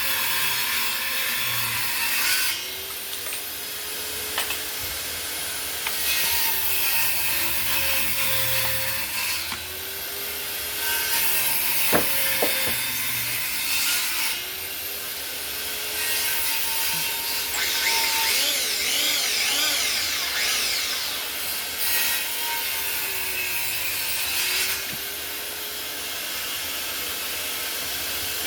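Electric wood planer with freshly installed blades being test-run on a board: the motor runs steadily, and in about six passes the cutting rushes loudly for two to four seconds each while the motor pitch sags under load and recovers between passes.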